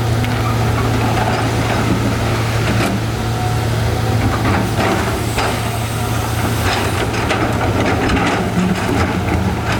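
Excavator diesel engine running steadily, with scattered knocks of rock being moved by the machine.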